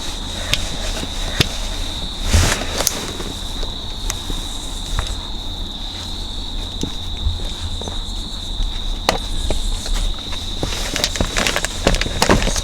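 Scattered clicks and knocks of hands and a flathead screwdriver working at a stubborn plastic sun visor mount in a car's headliner, over a steady high-pitched whine.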